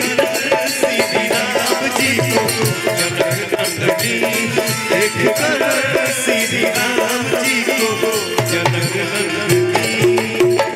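Live band playing an instrumental passage of a Bhojpuri devotional song: a keyboard melody over fast, steady percussion.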